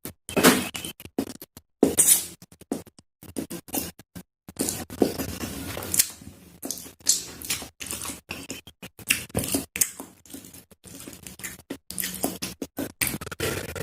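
Close-miked eating sounds of ramen being slurped and chewed: rapid, irregular wet smacks and sharp clicks in short bursts, with abrupt silences between them.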